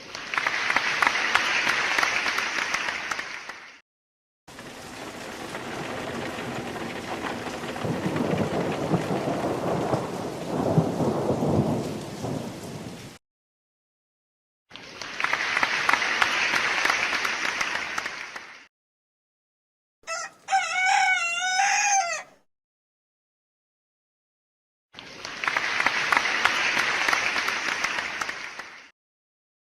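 Separate nature sound clips divided by short silences: rain falling, then a longer stretch of rain with thunder rumbling and swelling, rain again, a rooster crowing once, and rain a last time.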